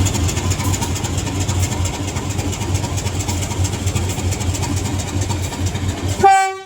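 Diesel locomotive engine running with a steady low throb. Near the end it cuts off and a short horn note sounds, then fades.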